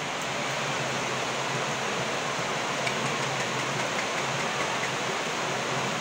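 Heavy rain pouring down, mixed with rushing floodwater: a steady, even hiss.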